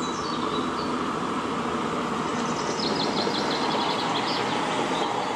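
Dump truck's engine running steadily, with faint high chirps a few seconds in.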